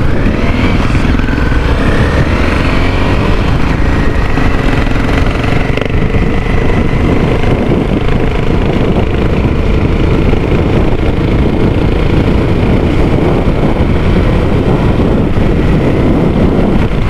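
Single-cylinder dual-sport motorcycle engine, heard from the rider's position, pulling away and accelerating through the first few seconds, then cruising steadily, with wind noise over the microphone.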